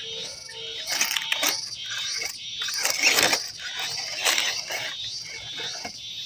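MN99S 1/12-scale RC crawler clattering over loose rocks: irregular clicks, knocks and scrapes from its tyres and chassis on stone, loudest about three seconds in.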